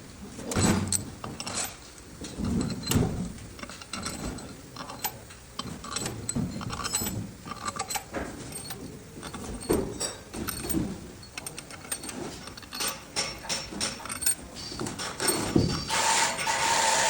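Workshop clatter from engine assembly: metal parts and hand tools clinking, clicking and knocking irregularly. Near the end there is a steady hiss with a held tone lasting about a second.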